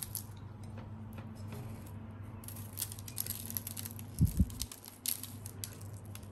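Flaky salt sprinkled by hand over halved cherry tomatoes on a parchment-lined baking tray: faint scattered ticks and patter of falling flakes over a low steady hum. Two dull low thumps come about four seconds in.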